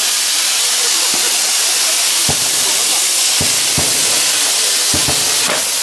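Handmade bamboo-tube fountain fireworks (tatebana, gunpowder packed into bamboo tubes) held by hand and spraying sparks with a loud, steady hiss. About half a dozen sharp pops break through the hiss.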